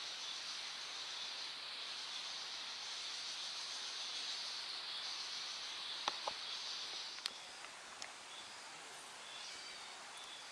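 Steady high-pitched buzzing of an insect chorus that drops away about seven seconds in, with a few sharp clicks around then.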